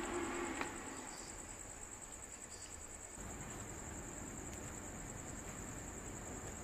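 Night insects chirring in a steady, high-pitched trill. A low steady hum cuts off abruptly about half a second in.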